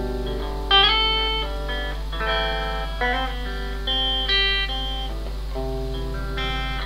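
Electric guitar played solo, picking a run of single notes and chords, with a note bent upward about a second in.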